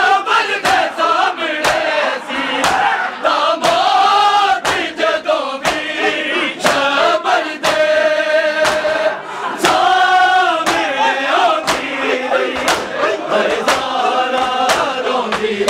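Men singing a Punjabi noha, a Shia lament, as a group chant with a leading voice. Under it runs matam: the mourners strike their chests in a sharp, steady beat of about one strong stroke a second.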